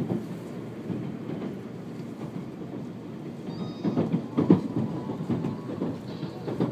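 Running noise of an N700 series Shinkansen heard inside the passenger cabin: a steady low rumble that grows louder about four seconds in.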